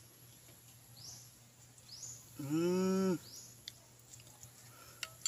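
A man's drawn-out voiced hum, an "mmm" of relish while eating soup, lasting under a second about halfway through.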